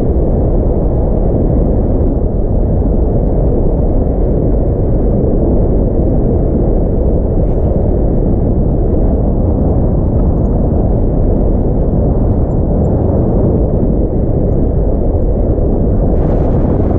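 Steady rumble of wind buffeting an action camera's microphone from the airflow of a paraglider in flight. A higher hiss joins in near the end.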